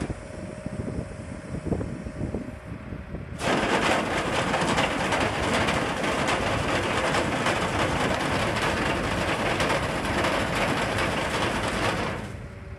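1995 Ford tender truck running. About three seconds in, a loud, steady rushing noise starts suddenly from the truck and fades out near the end.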